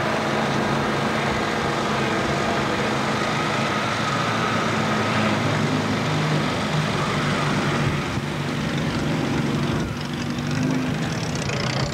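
Engines of Mini-based rallycross cars running at low revs and idling, a steady, loud engine note that wavers slightly in pitch.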